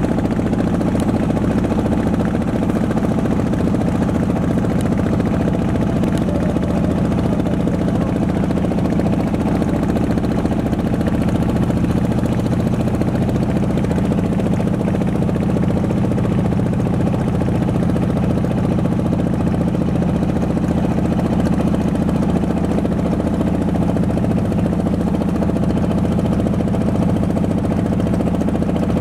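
Inboard engine of a wooden river trawler running steadily at constant speed, a low, even drone with no change in pitch.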